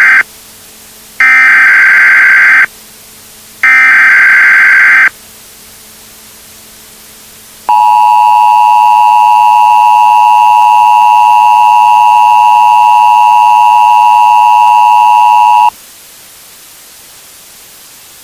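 Emergency Alert System header bursts: the end of one harsh digital data burst, then two more of about a second and a half each. After a short pause comes the EAS two-tone attention signal, a steady dual tone held for about eight seconds that cuts off sharply into a low steady hiss, announcing the Emergency Action Notification to follow.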